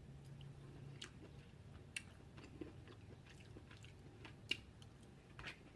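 A person chewing food close to the microphone: faint, with scattered soft mouth clicks about once a second.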